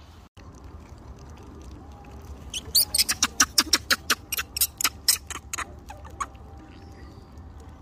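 Newborn macaque squeaking: a rapid string of short, sharp, high squeaks, about five a second for some three seconds, starting a couple of seconds in.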